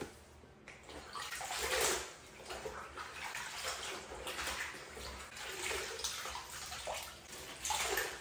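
Water splashing and sloshing in irregular bursts as clothes are washed by hand, squeezed in a plastic basin of water and worked at a sink tap. The bursts are loudest about two seconds in and near the end.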